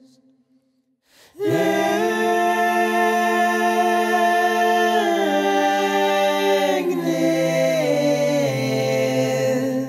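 Music: sustained vocal chords in a cappella choir style, starting after a second and a half of silence and moving to a new chord every couple of seconds.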